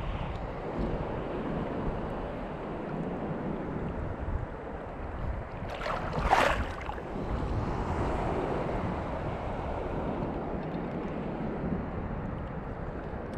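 Wind buffeting the microphone over shallow sea water, a steady rumbling rush, with one brief sharper swish about six seconds in.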